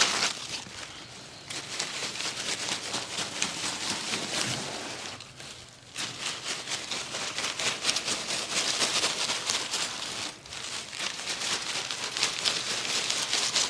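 Close-up, rapid crackly scratching and rubbing, as of hands or a massage tool working over skin, hair or fabric, in stretches of a few seconds broken by short pauses about five and ten seconds in.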